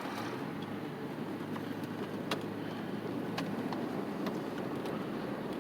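Car running along a road, heard from inside the cabin: a steady low engine hum and road noise, with a few faint clicks.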